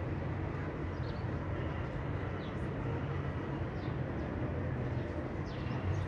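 Steady outdoor city ambience: a low rumble of distant traffic, with a few short, falling bird chirps every second or two.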